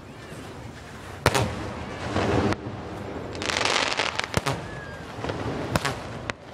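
Aerial fireworks bursting: several sharp booms, the loudest about a second in, with spells of rushing, crackling noise between them.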